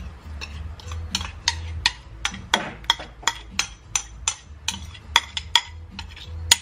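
A spoon scraping and tapping a thick marinade out of a ceramic bowl into a stainless steel mixing bowl: a steady run of sharp clinks, about three a second.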